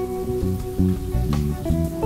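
Background music with a bass line moving through short, changing notes under higher sustained notes.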